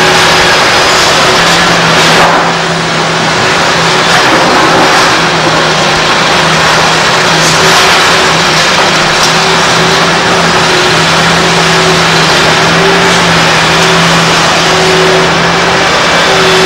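Liebherr R964 crawler excavator's diesel engine running steadily under working load, a constant hum over the clatter and noise of the machine at work.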